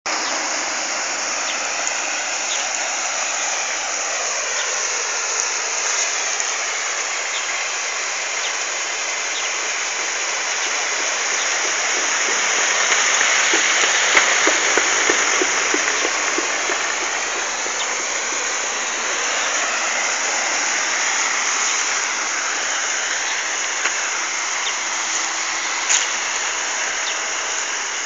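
Steady rush of flowing river water, swelling for a few seconds about halfway through.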